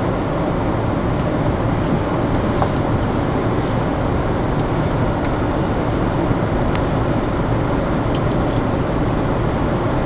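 Steady low hum and rumble inside a standing electric commuter train carriage, held at a stop with its equipment still running. A few faint high clicks come late on.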